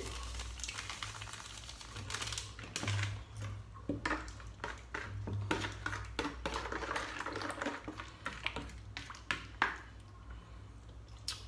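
A hand mixing a soy-sauce marinade in a plastic bowl: irregular small wet clicks and sloshes as the liquid and seasoning are stirred, over a steady low hum.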